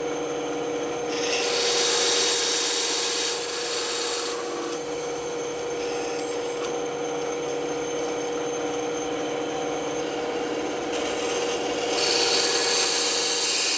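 Band saw running with a steady hum, its blade cutting through wood in two louder stretches of hiss: from about a second in to about four seconds, and again from about eleven seconds in to near the end.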